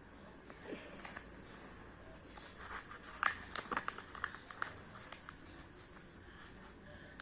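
Hands handling craft materials: a quick run of light taps, clicks and rustles about three to four and a half seconds in, over faint steady hiss.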